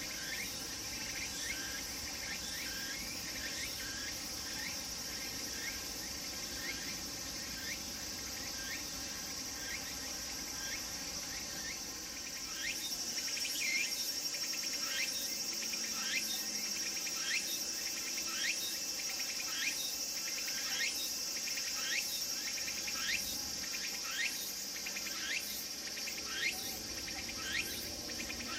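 Cicadas singing, tsukutsukuboshi (Meimuna opalifera) among them: a steady high drone with short calls repeated over it about one to two times a second. The drone grows louder about twelve seconds in.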